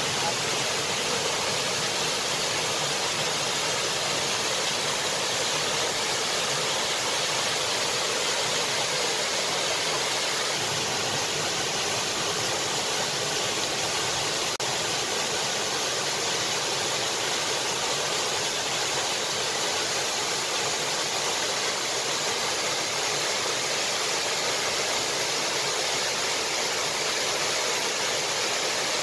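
Steady, even rushing noise at a constant level, with no separate clicks, voices or changes.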